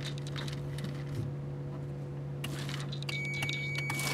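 Electric motor of a 1991 Toyota Liteace's automatic window curtains running, a steady low hum as the curtains are drawn along their rail. A thin, high steady tone joins about three seconds in.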